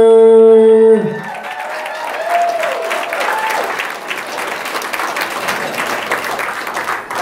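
Audience applauding, starting about a second in as an announcer's long, drawn-out call of a name ends.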